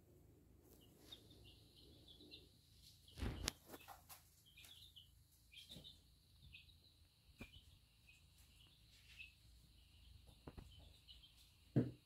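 Baby chicks peeping faintly, with short high peeps in quick runs. A few soft bumps from handling, the loudest about three seconds in and another near the end.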